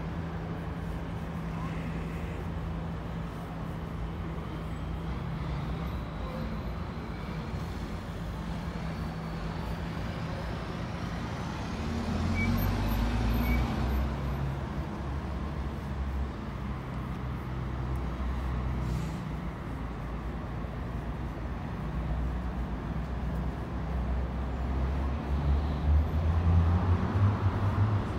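Steady road traffic rumble. About halfway in, a red articulated city bus passes close by with a rising whine and a louder engine rumble. Near the end another heavy vehicle rumbles louder.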